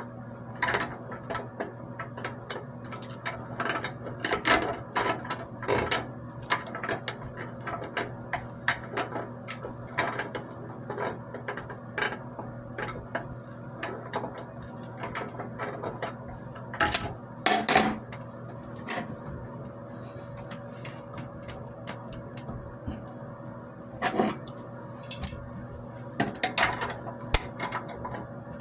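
Irregular metallic clicks and clanks of hand tools and fittings being worked during plumbing, with a few louder clanks, over a steady low hum.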